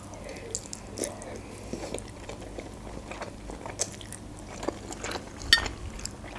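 Close-miked chewing of a mouthful of soft dough, with small wet mouth clicks. Near the end there is a sharper click as a metal fork touches the plate.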